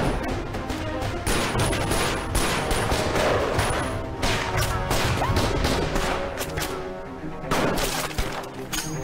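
Gunfire in a film battle scene: many rapid shots in overlapping volleys over background music, thinning for a moment about seven seconds in before the shooting picks up again.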